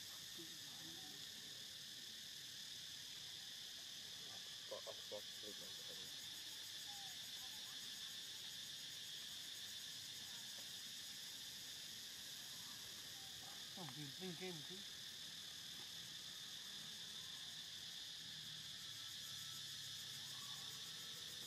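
Steady, high-pitched chorus of insects, with two brief faint voice-like sounds about five and fourteen seconds in.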